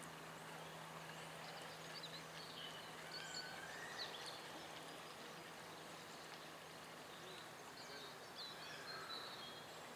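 Faint outdoor ambience with scattered short bird chirps and calls over a steady low hum.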